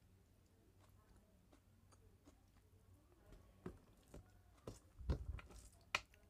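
Hand-eating sounds: fingers squishing rice and mutton curry on a steel plate, and mouth chewing. It starts faint, then turns into a run of sharp wet smacks and clicks in the second half, loudest just after the middle.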